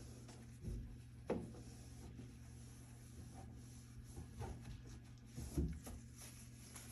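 Faint rubbing of a washcloth wiping down a microwave's surfaces, with a few soft knocks, over a steady low hum.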